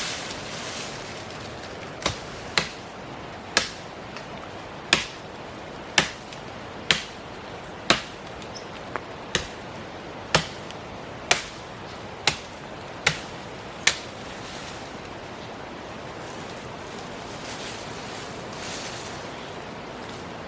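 A series of about fourteen sharp impacts, roughly one a second and unevenly spaced, over a steady background hiss; the strikes stop a little past the middle.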